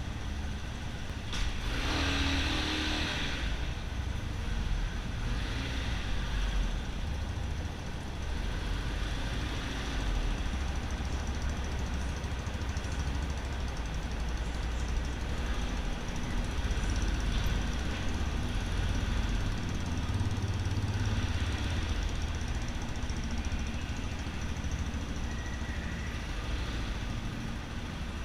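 Yamaha XTZ 250 Ténéré's single-cylinder four-stroke engine running through a Roncar 2WAY SC401 aftermarket exhaust, a steady deep rumble with a few brief swells.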